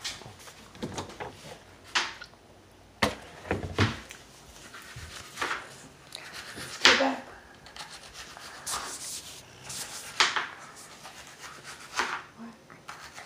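Handling noise from a phone being moved about: rubbing with irregular knocks and scrapes, the sharpest about seven seconds in.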